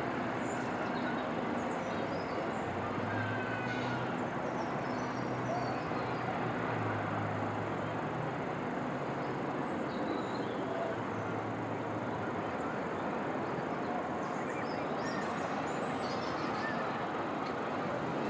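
Steady wash of distant city traffic noise, with faint bird chirps now and then.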